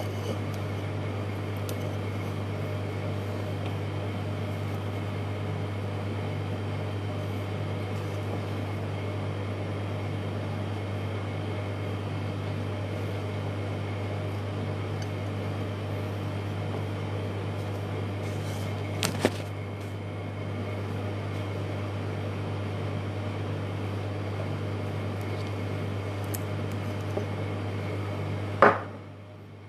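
A steady low machine hum, with two quick clicks about two-thirds of the way in and a louder knock near the end, after which the hum briefly cuts out.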